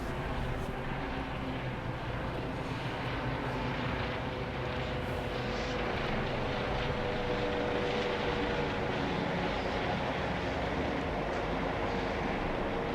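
Steady engine drone with a constant low hum and no sharp events.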